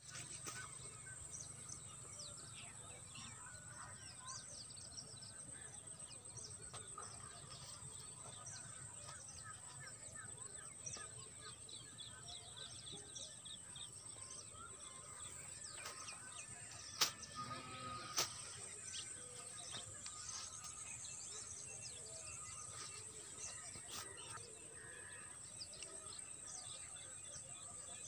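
Many small birds chirping, a steady chatter of short calls over a low background rumble. Two sharp clicks, about a second apart, a little past halfway.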